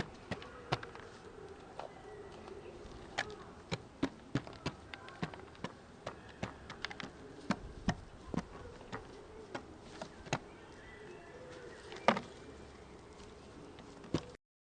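Wood pigeon pecking at food: irregular sharp beak taps, two or three a second, with a louder knock about twelve seconds in, over a faint steady hum.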